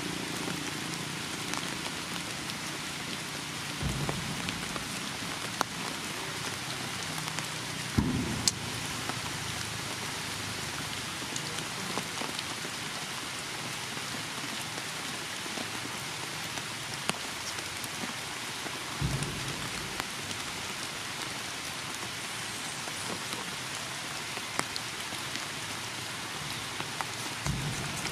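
Steady rain falling, an even hiss with scattered drip ticks. A few short dull thumps come about four, eight and nineteen seconds in and again near the end.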